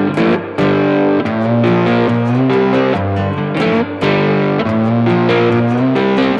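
Music led by a plucked guitar playing a melody of changing notes.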